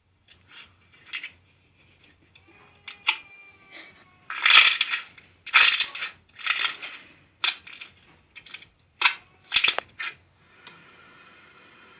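Slime being squeezed and pressed in the hands, giving a series of short, crisp crackling and clicking bursts, the loudest few in the middle.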